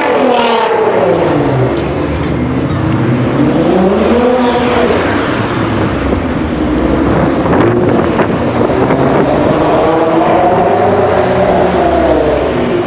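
Nissan GT-R engine and exhaust revving up and falling back several times, with a few sharp exhaust pops about eight seconds in.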